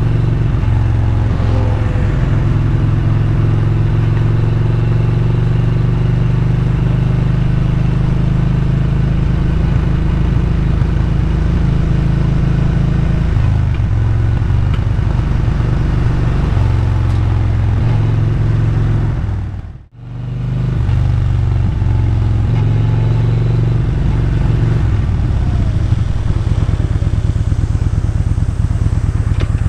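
Motorcycle engine running on the move, heard from the bike itself over wind and road noise, with a few changes in engine pitch. Just under two-thirds of the way through, the sound dips out briefly and comes back.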